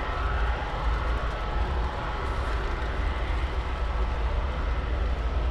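HO scale model freight train rolling steadily past on the layout, its wheels and cars giving a continuous running noise over a low hum.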